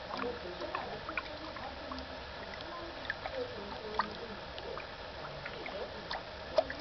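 Kitten pawing at the water of a paddling pool: small splashes and water plinks, with a sharper one about four seconds in and another near the end.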